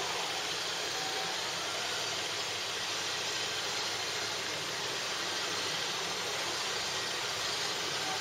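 Steady, even hiss of background noise with no breaks.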